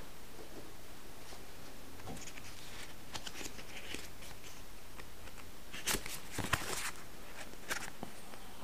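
Faint rustling and a few light ticks of a small paper card being handled and folded, over quiet room tone.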